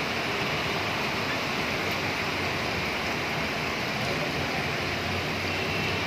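Heavy rain falling steadily on a paved lane, an even hiss with no breaks.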